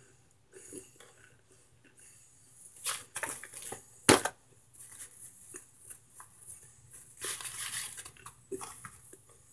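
Dry microwaved cornstarch chunks being handled and crushed in a foil pan: scattered crunchy crackles and rustles, with one sharp crack about four seconds in and a denser burst of crunching near the end.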